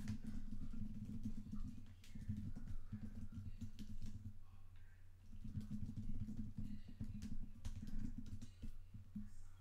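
Trading cards and foil pack wrappers being handled at a table: quick, irregular clicking and rustling in several spells, with a pause around four to five seconds in, over a steady low hum.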